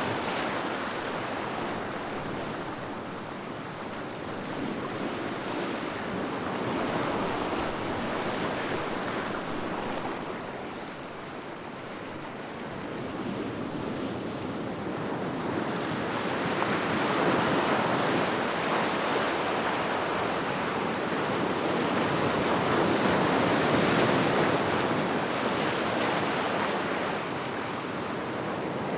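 Sea waves washing onto a shore in a continuous rushing surf, swelling and ebbing slowly, louder in the second half, with some wind on the microphone.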